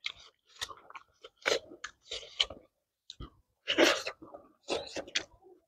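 Close-miked mouth sounds of people biting and chewing pork pieces, coming in irregular bursts with short gaps, with some crunches among them.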